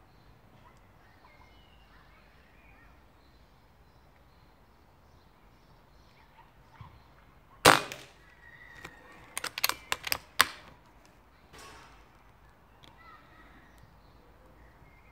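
Webley Mastiff .22 air rifle firing a single shot, a sharp crack about halfway through, followed a second or two later by a quick run of sharp metallic clicks as the action is worked. Faint birdsong underneath.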